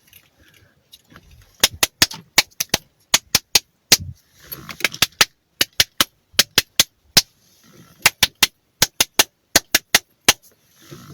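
A rapid, irregular series of sharp clicks or taps, several a second, beginning about a second and a half in.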